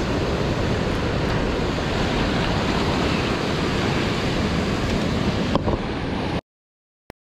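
Surf washing on the beach with wind on the microphone, a steady even rush. There is a short click about five and a half seconds in, and near the end the sound cuts off to dead silence.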